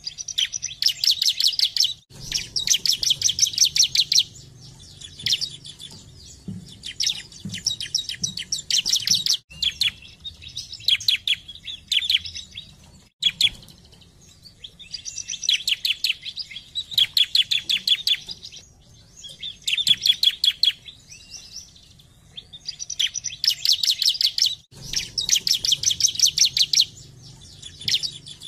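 Bar-winged prinia (ciblek) singing: fast, rattling trills of rapid high notes, about ten a second. The trills come in bursts of one to two seconds, repeated over and over with short pauses between.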